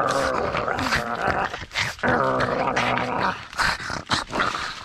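Pug play-growling while tugging on a stick: two long growls of about a second each, the second starting about two seconds in, with short clicks and rustles between them.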